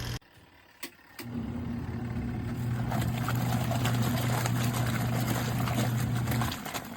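Twin-tub portable washing machine running: the wash motor hums steadily while water churns in the tub. It starts about a second in, just after a click, and stops shortly before the end.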